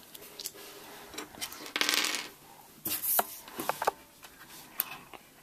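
Small plastic Lego pieces clicking and clattering as they are handled and rummaged through. A louder rattle comes about two seconds in, another about three seconds in, then scattered single clicks.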